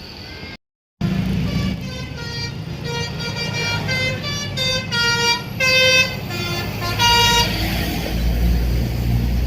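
A bus's Basuri musical multi-tone air horn playing a quick tune of stepped notes for about six seconds. The bus's engine rumbles underneath, growing louder near the end as the horn stops.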